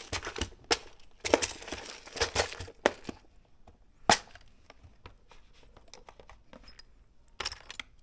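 A small plastic Mini 4WD chassis part being cut and scraped by hand to enlarge an opening: sharp snaps and short scraping strokes, thick in the first three seconds, then a single snap about four seconds in and a last short burst near the end.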